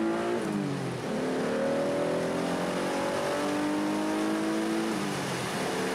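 Mitsubishi 3000GT's V6 engine heard from inside the cabin under hard acceleration. The revs climb, drop with an upshift about half a second in, climb steadily again for several seconds, and drop with another shift near the end.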